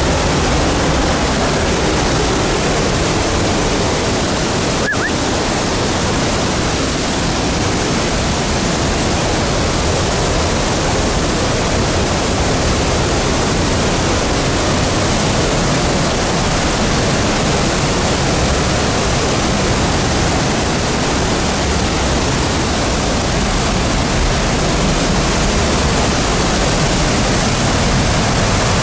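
Sutherland Falls, a waterfall, making a loud, steady rush of falling and churning water as it plunges into a rocky pool.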